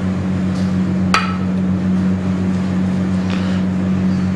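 Steady low hum from kitchen equipment, with a single sharp metallic clink about a second in that rings briefly.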